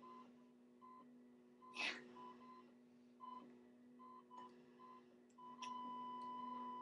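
Faint electronic beeps at one pitch, irregularly spaced, then one long held tone from about five and a half seconds in, like a hospital heart monitor, played from a music video through computer speakers. A steady low hum runs underneath.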